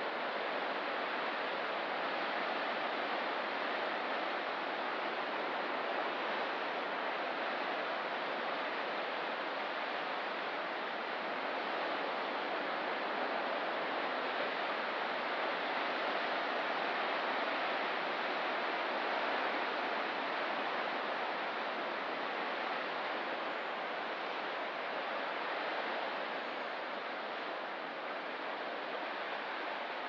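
Ocean surf washing along a rocky shore, heard as a steady, even rush of water with no separate wave breaks standing out.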